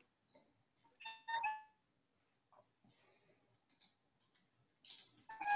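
Two short ringing chime-like tones about a second in, and another chime near the end, over an otherwise very quiet room.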